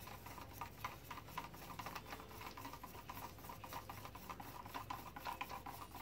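Wooden craft stick stirring pouring paint in a plastic cup: faint, irregular small clicks and scrapes of the stick against the cup.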